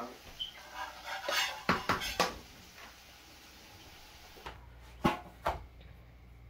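A metal spoon clinking and scraping against a frying pan and a plate as fried food is served out, with several sharp clinks in the first two seconds or so. Two more knocks come a little after five seconds in.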